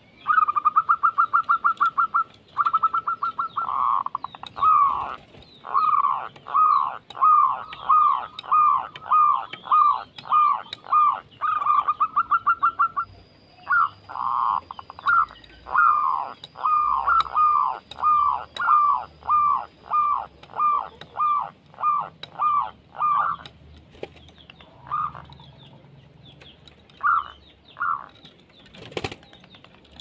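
A caged dove calling: a fast rattling trill, then long runs of short falling notes at about two a second, with another trill partway through. The notes thin out near the end, and a single sharp click comes shortly before the end.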